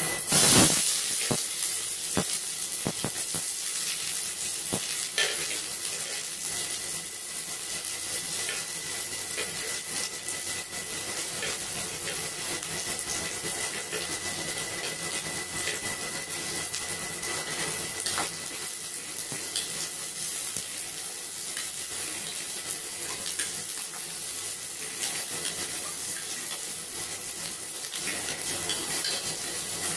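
Sliced onions and ginger sizzling in hot oil in an aluminium wok. There is a loud burst of sizzling as the onions go in just after the start, then a steady sizzle with occasional scrapes and taps of a wooden spatula stirring.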